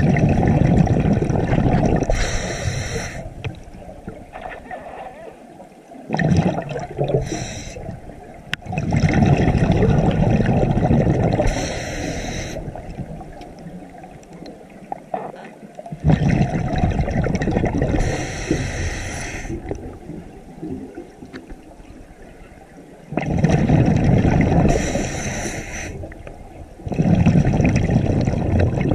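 Scuba diver breathing through a regulator underwater, about five breaths: each a bubbling rumble of exhaled air and a short hiss as the regulator delivers air on the inhale.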